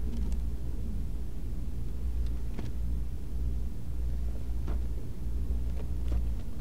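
Steady low rumble of room noise, with three faint, brief rustles as Bible pages are turned.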